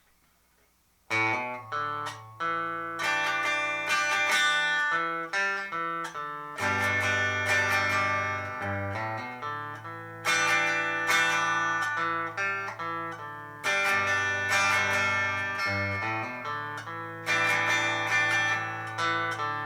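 Electric guitar, a Squier 40th Anniversary Telecaster on its bridge pickup, played clean through a Sound City Master Lead 50 amp and a Schroeder 12PL cabinet with no reverb. About a second in, it starts a melodic passage of picked notes over held low notes.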